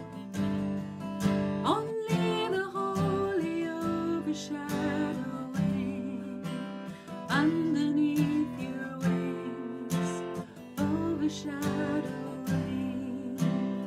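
Worship song: strummed acoustic guitar accompanying a sung melody.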